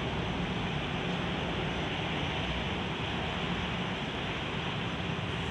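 Steady rumble of an Alsthom diesel-electric locomotive with an MTU engine, running as the train pulls away down the line.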